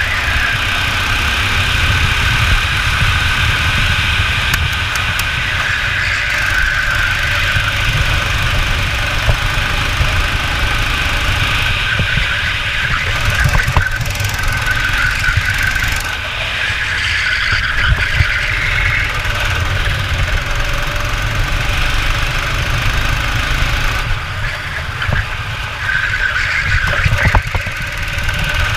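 Kart engine running hard at racing speed, its pitch rising and falling as the kart accelerates down the straights and backs off for the corners.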